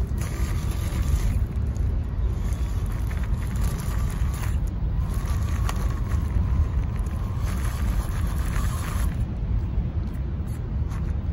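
WPL C34 RC crawler's small electric motor and gears whining faintly and unevenly as it crawls over loose rocks, the whine wavering in pitch and strongest through the middle. A steady low rumble of wind on the microphone sits under it and is the loudest sound.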